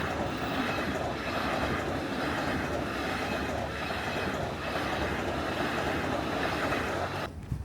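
Loud, steady rumble of a passing vehicle, cut off abruptly near the end.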